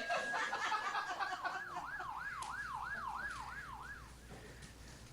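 Police car siren: a long rising wail that switches about a second in to a fast up-and-down yelp, about three cycles a second, then fades away near the end.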